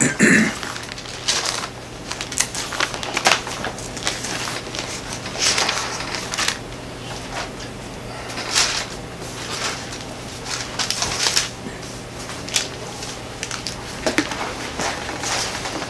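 Pages of a Bible being leafed through: irregular paper rustles and flicks as the pages are turned one after another, over a steady low hum.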